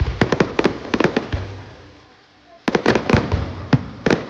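Fireworks going off in rapid volleys of sharp cracks: a dense run of cracks over the first second or so, a brief lull, then another volley from about two and a half seconds in.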